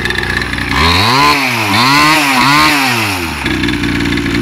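Mini moto engine idling, then revved three times in quick succession, its pitch rising and falling with each blip, before dropping back to idle.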